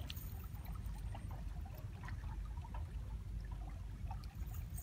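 Low, steady wind rumble with faint trickling and scattered small clicks as a wet cast net is gathered and arranged on the arm.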